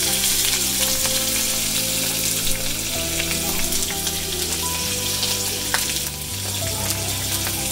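Hot coconut oil sizzling steadily in a small non-stick pan as finely chopped red onions are added to a tempering of mustard seeds, urad dal and green chillies, with background music underneath.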